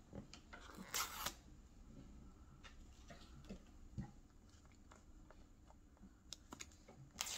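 Quiet room with faint handling of a cardboard iPhone box: short rustles about a second in and again near the end, and a light knock around four seconds in.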